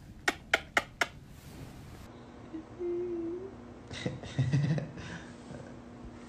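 Four quick sharp clicks, about four a second, then a person humming one short note.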